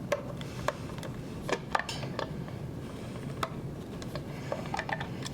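Scattered light clicks and taps from handling the cover of a Fisher FIELDVUE DVC6200 digital valve controller as it is taken off, over a faint steady hum.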